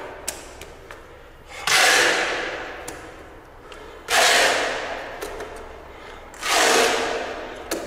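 Metal putty knife scraping and spreading wet tile adhesive in three strokes about two seconds apart. Each stroke starts sharply and fades over about a second, with small clicks between them.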